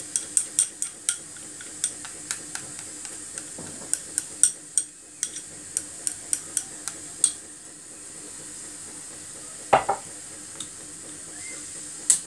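Wooden chopsticks tapping and scraping against a small bowl as red yeast rice is pushed out of it: a quick run of light clicks for about seven seconds, then a pause and a louder knock about ten seconds in, with a few more clicks near the end.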